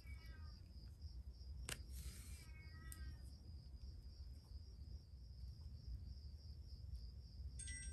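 Quiet room tone with a faint, steady, high-pitched pulsing chirp and a low hum, broken by a single sharp click about two seconds in and a brief ringing tone near the end.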